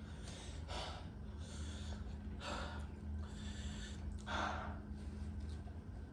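A person taking sharp, noisy breaths, several in a row with three stronger ones about two seconds apart: breathing hard against the burn of habanero hot sauce. A faint steady hum runs underneath.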